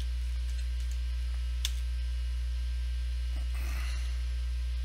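Steady low electrical mains hum picked up by the recording setup, with a faint click about a second and a half in.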